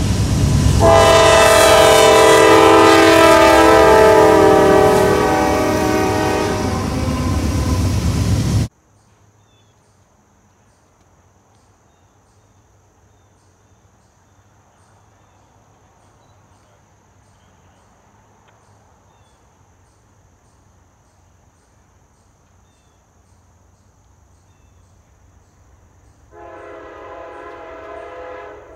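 Norfolk Southern diesel freight locomotive sounding its multi-tone air horn loudly over engine and rail rumble for about eight seconds, cut off suddenly. After a long quiet stretch, a train horn chord sounds again, much fainter, near the end.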